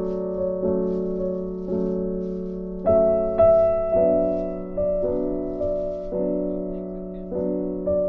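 Background piano music: soft chords struck about once a second, each ringing and fading.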